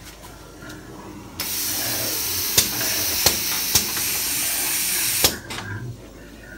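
A loud, steady hiss of a pressurised jet of air or gas, starting suddenly about a second and a half in and cutting off sharply about four seconds later, with a few sharp clicks during it.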